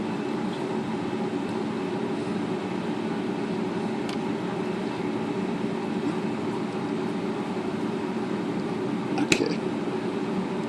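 Steady low machine hum, like a fan, under small metal sounds of a wrench on a typewriter's escapement-trip adjusting nut: a faint tick about four seconds in and a sharp metal click near the end.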